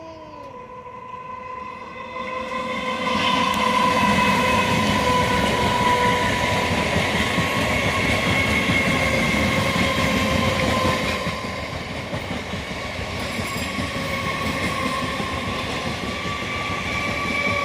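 A train passing close by: the rumble and clatter of the wheels swell up within the first few seconds and stay loud, over a steady high whine that runs throughout.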